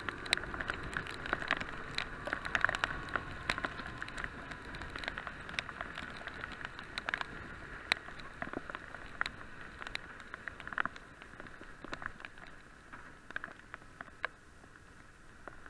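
Heavy rain pattering on an SJCAM SJ4000 action camera's waterproof housing on a moving motorcycle: many irregular sharp taps of drops over a steady rush of wind and wet road. The taps thin out and the sound gets quieter near the end.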